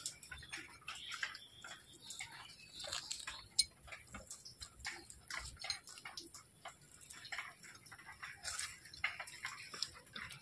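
Cleaning an ash-coated swamp eel (kuche), its slime being rubbed off with ash: a run of short, irregular scrapes and clicks.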